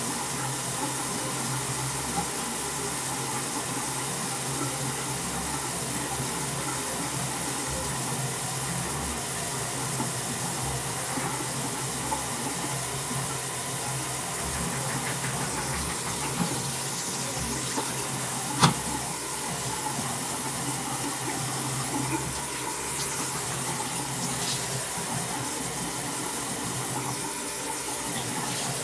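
Bathroom tap running steadily during face washing, a constant hiss of water, with a few small clicks and one sharp knock about two-thirds of the way through.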